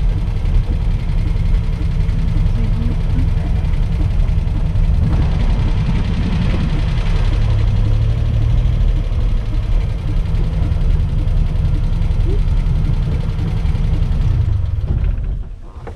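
The three-cylinder engine of a 1984 Daihatsu Hijet 1000, running steadily and heard from inside the cabin while driving, with road noise. The sound fades out near the end.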